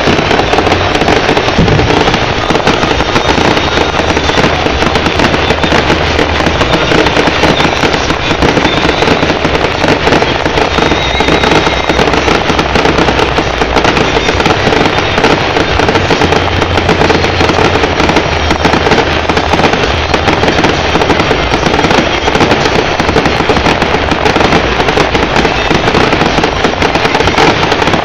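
Fireworks going off in a dense, continuous barrage: rapid bangs and crackles packed so closely they run together, with no pause.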